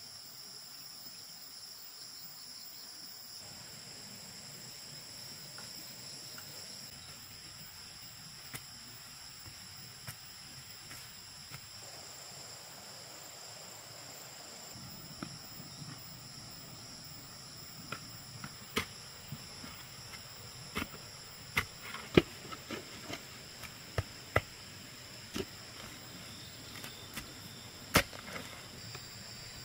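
Steady high-pitched drone of insects throughout. From about halfway on come irregular sharp knocks of a long digging bar being driven into the ground, several of them loud.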